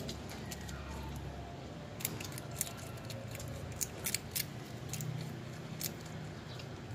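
Kitten crunching shrimp shells: from about two seconds in, a run of irregular sharp crunches.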